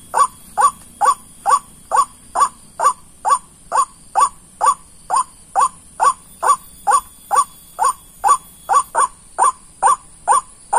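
White-breasted waterhen (ruak-ruak) calls repeated in a steady, even series, about two a second, each a short note falling in pitch.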